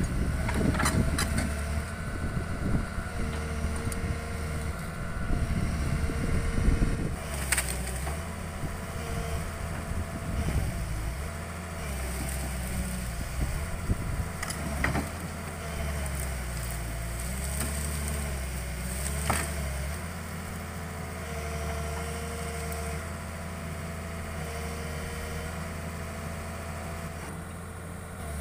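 Hitachi excavator's diesel engine running, with a thin whine that steps up and down in pitch as the machine is worked. There are a few sharp knocks, the loudest about seven seconds in.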